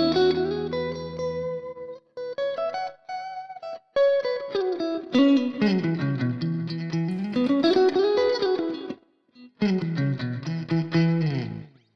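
Clean electric guitar, a PRS SE Silver Sky played through a ToneLib GFX amp-simulator patch with stacked Deluxe Reverb and Dumble amp models, playing single-note licks and chord fragments with sliding bends, in phrases broken by short pauses about two, four and nine and a half seconds in.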